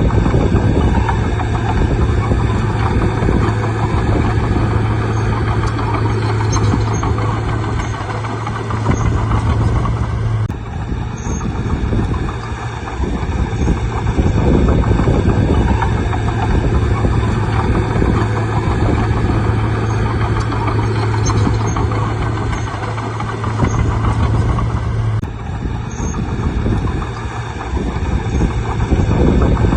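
Bulldozer's diesel engine running steadily with a strong low hum, over the noise of the machine working. The sound changes abruptly twice, about ten and twenty-five seconds in.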